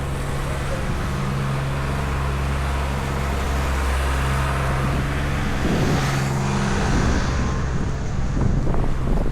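Street traffic with a large vehicle's engine running steadily close by, and a vehicle going past about six seconds in.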